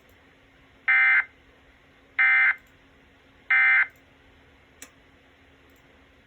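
Emergency Alert System end-of-message signal: three short bursts of SAME digital data tones, about a second apart. It marks the end of the broadcast warning.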